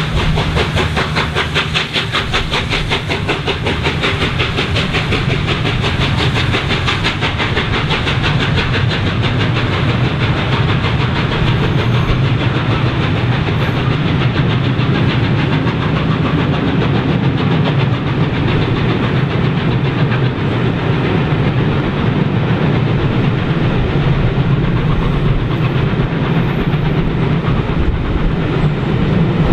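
Steam-hauled passenger train passing close below at speed: fast rhythmic chuffing and steam hiss from the locomotive, strongest in the first several seconds, then the coaches rolling by with steady wheel-on-rail clatter.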